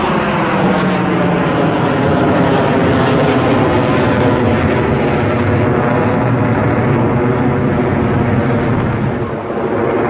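Jet engines of a formation of jet aircraft flying overhead: a loud, continuous rushing roar with slowly sweeping pitch. It dips briefly near the end.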